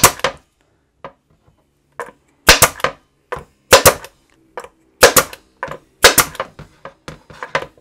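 WORKPRO 20-gauge oil-free pneumatic stapler firing staples into a board: about six sharp snaps roughly a second apart, most heard as a quick double crack, with lighter clicks in between.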